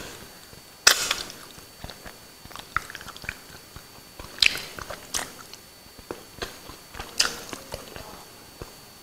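A person eating by hand, chewing with lip smacks and wet mouth clicks, with a few sharper, louder smacks scattered irregularly among the smaller ones.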